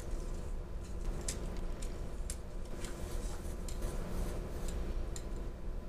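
Scattered light clicks and taps as a folding rule is opened out and handled, over a steady low hum.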